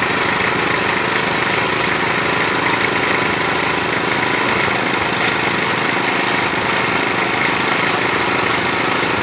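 Engine of a borehole well-drilling machine running steadily under load, with a fast, even pulsing.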